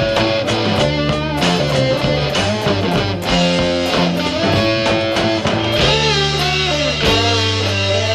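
Rock trio playing: electric guitar over bass guitar and drums, with a steady beat.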